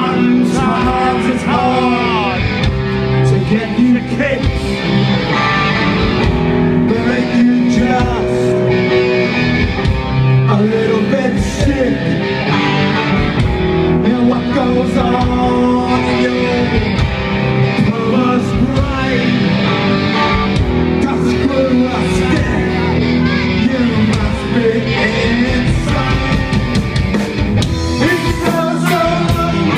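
Live punk rock band playing: electric guitars, bass and drum kit, with a man singing lead into the microphone.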